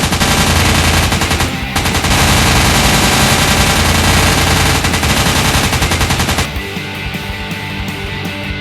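Rapid automatic gunfire sound effects over music, with a short break about a second and a half in. The firing cuts off abruptly about six and a half seconds in, leaving the music alone.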